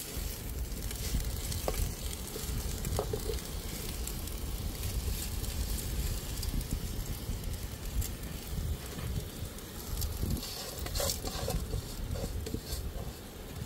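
Sizzling from a cooking pot over a wood fire as dry spaghetti is poured in. A few light clinks and knocks sound near the start and again about eleven seconds in.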